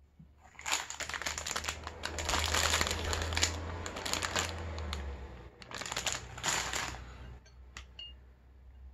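Plastic wrapper of an Indomie Mi Goreng instant-noodle packet crinkling as it is handled, on and off for several seconds with a short lull about two-thirds of the way through.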